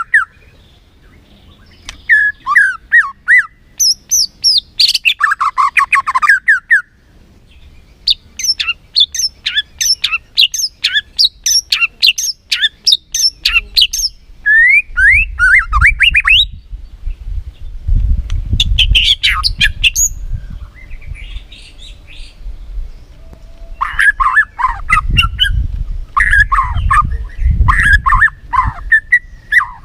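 White-rumped shama singing in bouts of rapid, high chirps and harsher squawky notes, separated by short pauses. A low rumble sits under the bouts in the second half.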